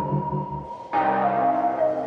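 Background music: synthesizer and keyboard chords with a pulsing bass that drops out, then a new chord about a second in with a held melody stepping slowly downward.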